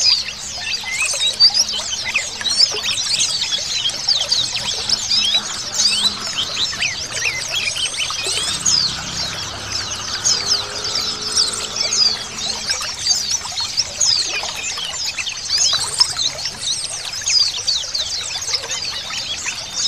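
A dense chorus of many white-eyes (pleci) twittering together, with short, quick, falling chirps overlapping without pause, over a steady trickle of running water.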